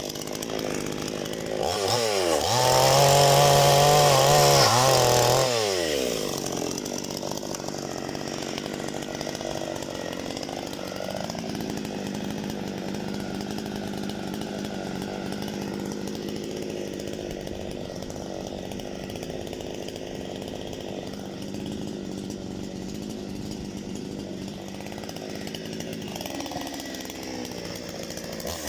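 Parma BP-058 two-stroke petrol chainsaw revving up to high speed for about four seconds, then dropping back to a steady idle; it revs up briefly again near the end.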